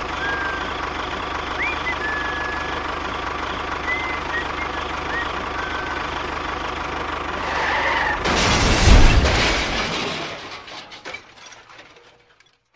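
A small engine or motor runs steadily, with short high chirps over it. About eight seconds in, a loud crashing rush swells up, then dies away to silence.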